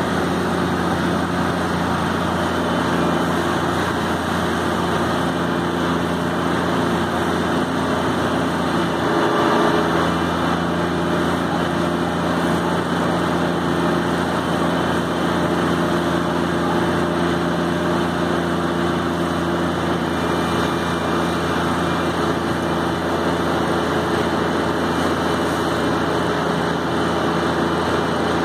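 A fire engine's engine running at a steady speed to drive its water pump, with a steady hiss over it. The sound holds unchanged throughout.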